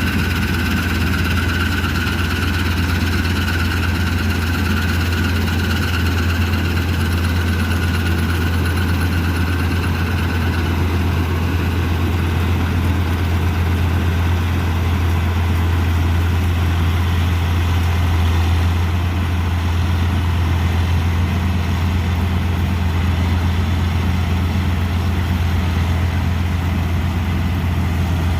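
Combine harvester running steadily during wheat harvesting: a deep, even engine drone with a higher whine over it that fades out about ten seconds in.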